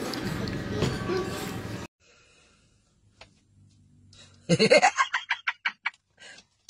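A man laughing in a run of short bursts, starting about halfway through, after a shorter stretch of background noise.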